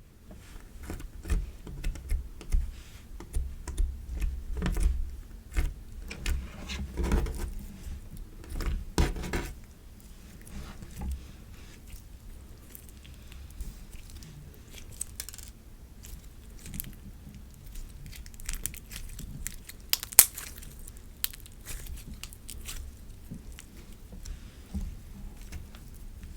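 Clear slime being squished and worked by hand, giving many small sticky pops and clicks. They are louder and busier for the first ten seconds or so, then softer and sparser.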